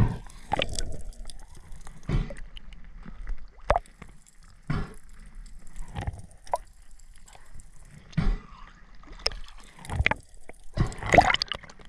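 Water sloshing and splashing, a dozen or so separate splashes and gurgles at irregular intervals.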